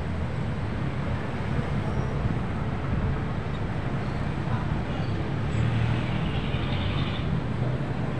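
Steady low outdoor background rumble, even throughout with no distinct events.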